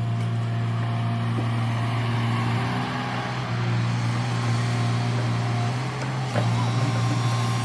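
Backhoe loader's diesel engine running steadily, with one sharp knock a little over six seconds in.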